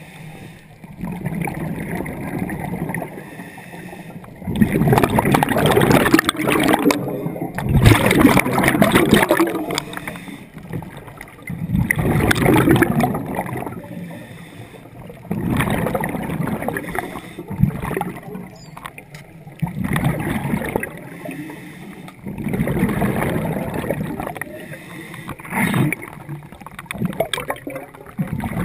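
A diver breathing underwater: exhaled air bubbles gurgling in bursts every few seconds, with quieter stretches between breaths.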